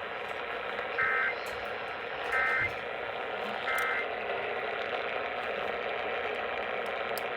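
Three short bursts of EAS SAME end-of-message data tones, the buzzy two-tone digital squawk that closes an Emergency Alert System activation, about a second and a half apart, over steady radio hiss.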